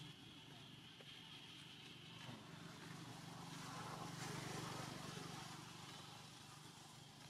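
Faint motor vehicle engine hum that swells to its loudest around the middle and then fades, as of a vehicle going by.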